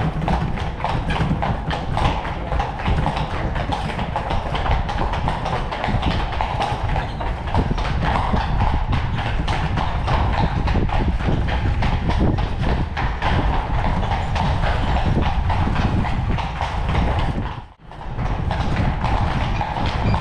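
Horse-drawn carriage on the move: the horse's hooves clip-clopping in a steady rhythm over a low rumble. The sound drops out for a moment near the end.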